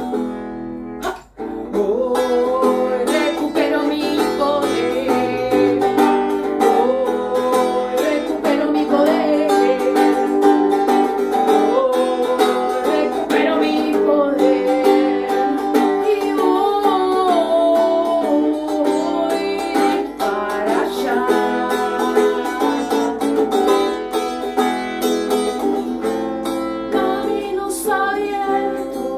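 A woman singing to her own strummed small-bodied guitar, the voice wavering in pitch over the chords. The music breaks off for a moment about a second in, then carries on.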